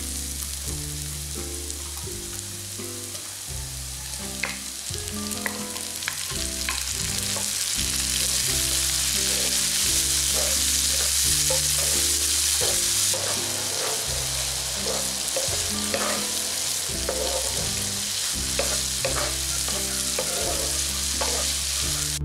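Onions, garlic and diced tomatoes sizzling in hot oil in a non-stick frying pan, stirred with a wooden spatula that scrapes and taps against the pan. The sizzle grows louder about a third of the way in.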